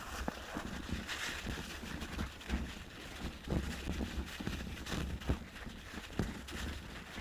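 Mountain bike riding over packed, trampled snow: the tyres crunch and the bike rattles in irregular knocks over a steady low rumble.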